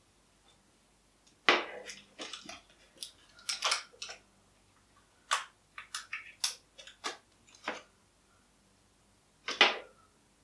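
Irregular clicks, taps and crinkles of hands handling a fidget spinner and a wire mesh pen pot on a table while fixing them together with Blu Tack, about a dozen sharp knocks with the loudest near the start and one near the end.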